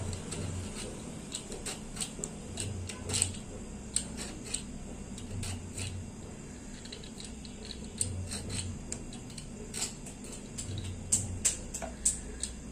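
Hand peeler scraping strips of tough, ridged skin off a ridge gourd (luffa), heard as a run of short, irregular scraping clicks.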